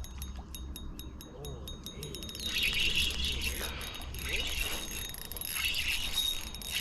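Fishing reel clicking in an even rhythm, about seven clicks a second, as line is worked against a hooked shad; the clicking stops about two seconds in and gives way to a steady noisy hiss.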